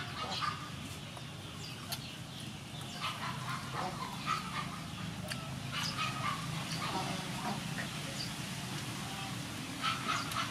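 Poultry calling now and then, a few short calls at a time, over a steady low hum.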